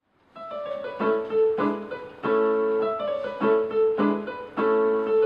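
Background music: piano playing chords, a new chord struck about every half second to second.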